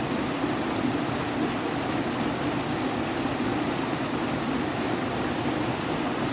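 Steady, unbroken rush of flowing mountain water, such as a stream or cascade.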